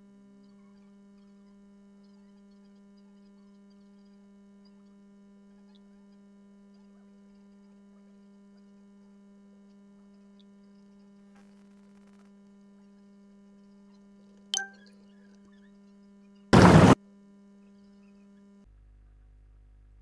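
Faint, steady electrical hum. About 14.5 s in there is a sharp click with a brief ring, then near the end a loud burst of noise lasting about half a second. Shortly after the burst the hum drops to a lower pitch.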